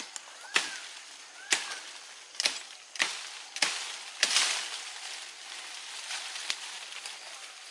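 A knife blade chopping into cinnamon stems at their base: six sharp strikes, one about every second, over the first four seconds or so. Then the leaves and stems rustle.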